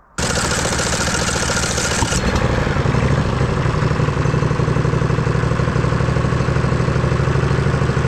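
Briggs & Stratton Vanguard 16 hp V-twin engine on a lawn tractor, started by bridging the starter solenoid terminals. The starter cranks it for about two seconds, then it catches and runs steadily. The key alone only clicks the solenoid, which the owner suspects is a bad ground.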